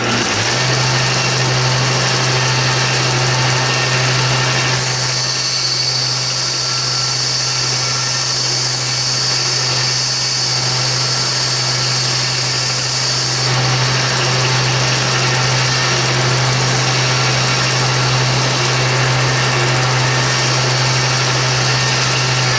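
Homemade plywood 2x72 belt grinder with a 1 hp, 220-volt motor running a red Scotch-Brite belt: a loud, steady motor hum with belt noise and rattle, which the owner puts down to the wooden frame vibrating and rattling. From about five seconds in until about thirteen seconds in, a higher hiss rides on top as a small piece of titanium is ground against the belt.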